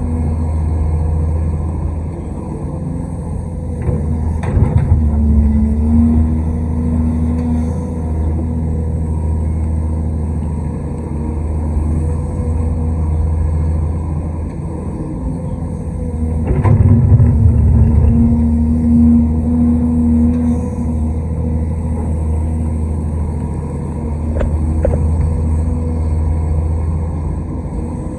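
Large excavator's diesel engine running steadily under load, rising in level and pitch as it works harder about four seconds in and again for a few seconds around the seventeen-second mark, with a few sharp knocks.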